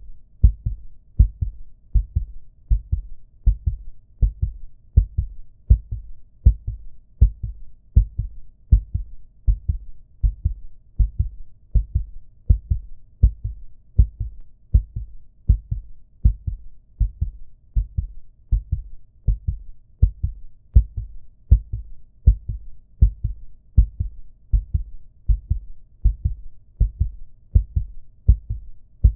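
Recorded human heartbeat sound effect: steady, evenly spaced low double thumps (lub-dub) repeating at an unchanging resting pace.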